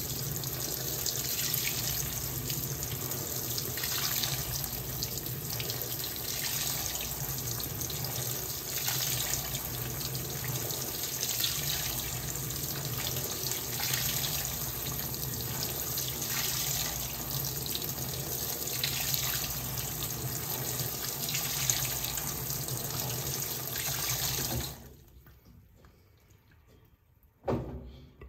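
Fisher & Paykel WL8060P1 washing machine taking in water, a steady rush of filling water that cuts off suddenly about 25 seconds in as the fill stops. A single sharp knock follows near the end.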